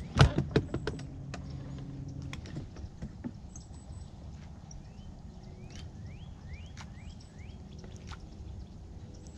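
A few sharp knocks against the fishing boat just after the start, followed by a low hum for about two seconds. Later a bird gives a run of five or six quick rising chirps over steady water-and-wind noise.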